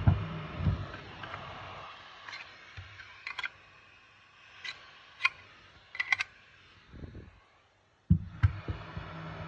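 Light, sharp plastic clicks and taps, about ten scattered over several seconds, as a JCD 8858 hot air rework station and its handpiece are handled. A low hum fades out at the start and comes back with a couple of thumps near the end.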